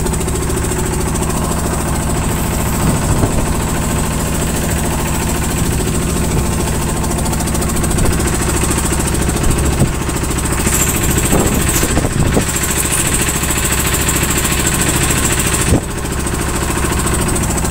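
Engine on a bagang lift-net fishing boat running steadily with an even low hum. A few knocks and clatters sound over it, around three seconds in, between about ten and twelve seconds, and near the end.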